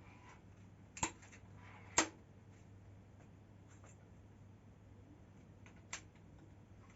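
Alligator 2 pistol crossbow being handled, giving two sharp mechanical clicks about a second apart and a fainter click near the end, with light rustling between.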